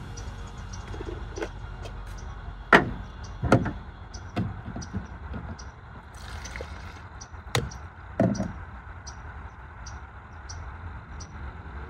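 Sample jars being handled on a truck tailgate: several sharp knocks and clunks as jars and lids are set down. About six seconds in comes a short pour of varroa wash liquid from one jar into another, over a steady background hiss.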